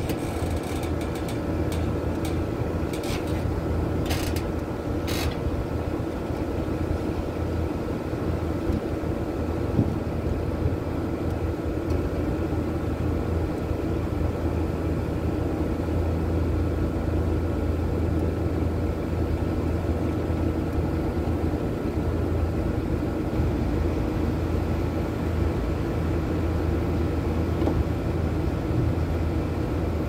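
Outdoor air-conditioner condensing unit humming steadily, with a few sharp metallic clicks in the first several seconds. The unit's compressor is not starting.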